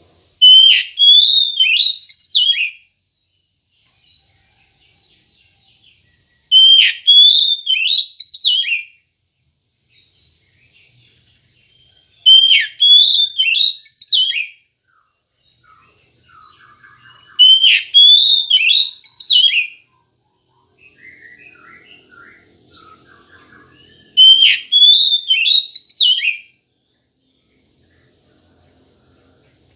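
Oriental magpie-robin (kacer) singing: five loud, near-identical whistled phrases of about two seconds each, repeated every six seconds or so, with faint soft twittering between them.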